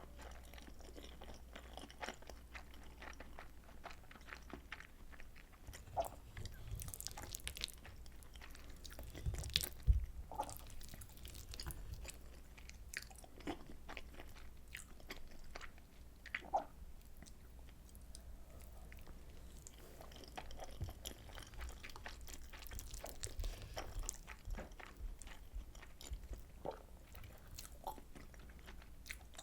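Close-miked chewing of soy sauce butter egg rice, a steady run of small wet mouth clicks, with a louder spell of bites and knocks about ten seconds in.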